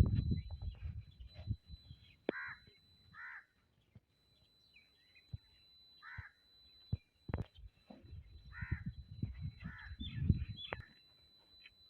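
A crow cawing, about five separate caws spread across several seconds, with a few sharp clicks. Bursts of low rumbling come near the start and again from about 8 to 11 seconds in.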